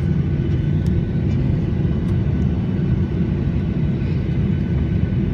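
Airliner cabin noise heard from inside the cabin: a steady low rumble from the engines and airflow, with faint steady hums above it.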